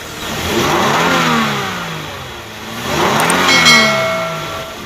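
Car engine revved up and let back down twice, on an engine that knocks, which the mechanic guesses comes from the wrong oil. A steady whine sounds over the second rev.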